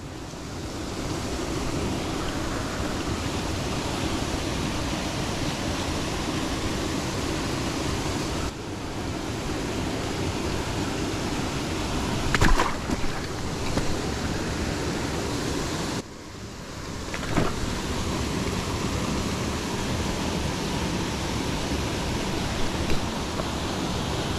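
Steady rush of water from a small creek cascade spilling into a pool, with a couple of brief sharper sounds about halfway through.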